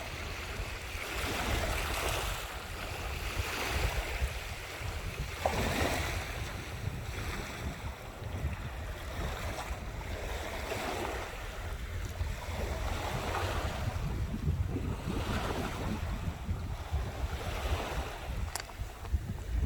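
Sea waves washing in and breaking on the shore, swelling and falling one after another every couple of seconds, with wind rumbling on the microphone.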